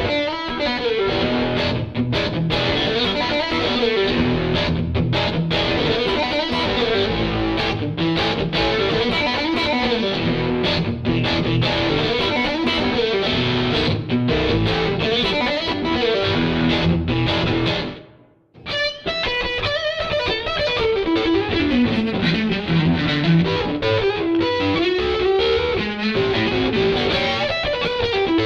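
Blues electric guitar from a Stratocaster played through a Surprise Sound Lab Flex15 single-ended amp into a 2x12 cabinet, overdriven with the boost maxed and the mid selector on its middle, 50-50 setting. The playing stops briefly about eighteen seconds in, then resumes.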